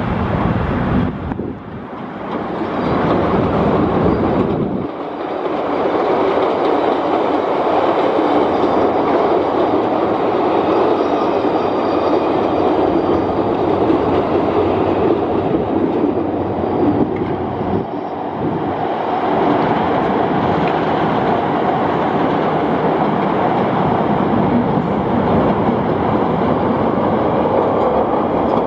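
Chicago 'L' rapid-transit trains running on the elevated steel track, a steady rumble of wheels on rails. The sound drops and changes twice in the first five seconds.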